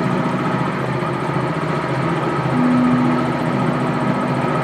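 Ride train's engine running steadily, a continuous mechanical rumble with a low drone held for about two seconds in the second half.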